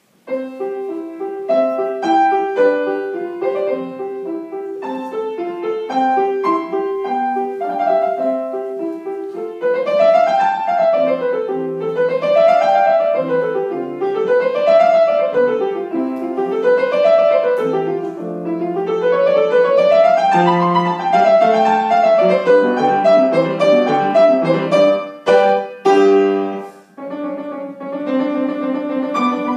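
Solo grand piano playing. A melody over chords begins just after the start. About a third of the way in, it changes to runs of notes that rise and fall again and again, and after a brief break near the end a new section of repeated chords begins.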